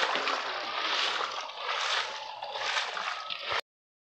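Water splashing and sloshing as a net crowded with live fish is gathered in shallow pond water, the fish thrashing against the mesh and hands working among them. The sound cuts out suddenly about three and a half seconds in.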